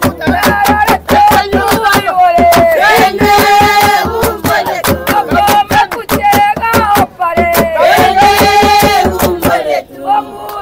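Group of voices singing in unison with held notes, over steady rhythmic hand clapping.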